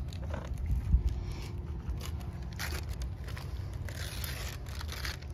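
Paper wrapping rustling and tearing as a birthday present is unwrapped by hand, in several crackly bursts through the second half, after a dull thump about a second in.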